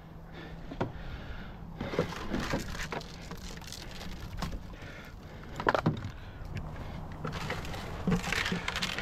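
Dry marsh reeds rustling and crunching, with scattered knocks and snaps; the clearest come about two seconds in, near six seconds and near eight seconds.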